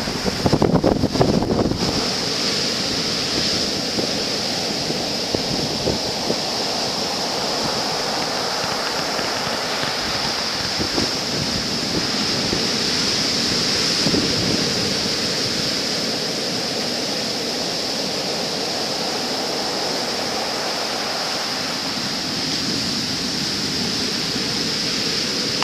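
Ocean surf breaking and washing up a sand beach, a steady rush of waves. Wind buffets the microphone in the first two seconds.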